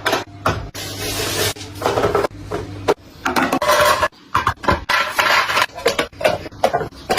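Food containers and packaging being handled and set down: a string of clacks and knocks with stretches of rustling.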